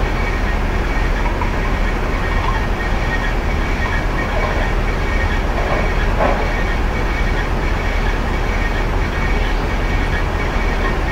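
Steady low rumble of a bowling alley: pinsetter and ball-return machinery running, with balls rolling on the lanes.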